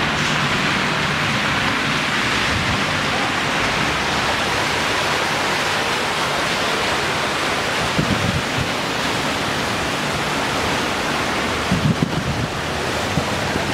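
Steady rushing hiss of tyres driving through standing floodwater on a street, with a low engine hum underneath.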